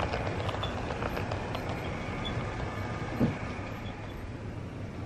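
Steady rain hiss with a low rumble beneath it, and one short low thump a little over three seconds in.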